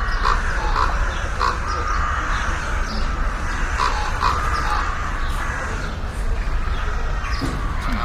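Sand cat giving a run of short calls, repeated irregularly and thinning out after about four seconds, over a steady low hum.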